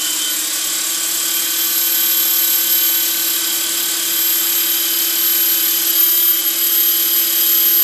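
Scorpion 4035-560 brushless motor, driven by a YGE 120HV ESC, spinning a bladeless Logo 600 helicopter's drivetrain at a steady governed speed of about 2200 rpm head speed. It gives a steady electric whine with several high tones, the V-Bar governor holding the speed constant in idle 2.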